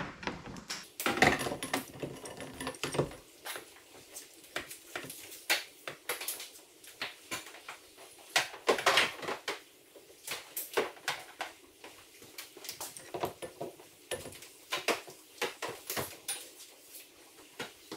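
Irregular light clicks, taps and knocks of a sonar transducer cable being straightened out and handled, its plug and cable tapping against hard surfaces, with a run of heavier knocks in the first few seconds.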